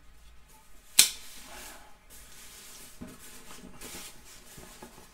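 A sharp click about a second in, then a knife slitting packing tape and cardboard rustling and scraping as a shipping box is cut open.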